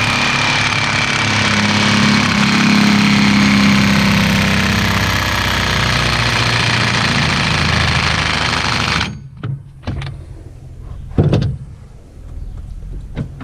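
Impact wrench hammering a side-by-side's axle hub nut down tight, running loud and steady for about nine seconds before stopping abruptly.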